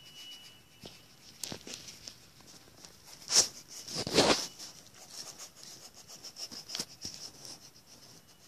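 Sheet of drawing paper rustling and rubbing as it is handled and shifted, with two louder rustles about three and a half and four seconds in.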